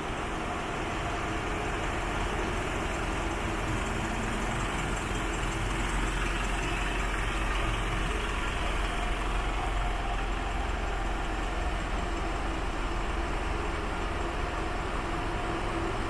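Mitsubishi Fuso Canter's 3.0 litre turbo diesel engine idling steadily.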